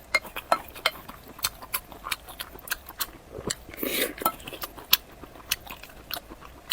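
Close-miked eating sounds: a run of sharp clicks and taps, like utensils against a bowl or plate, with chewing and one longer, noisier mouth sound about four seconds in.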